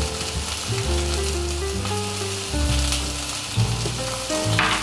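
Venison fillet sizzling as it sears in olive oil in a frying pan, under background music with a bass line and a simple stepping melody. A brief clatter near the end.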